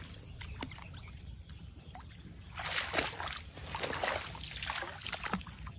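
Soft sloshing and rustling of shallow swamp water and wet grass in a few short bursts, with a few faint clicks.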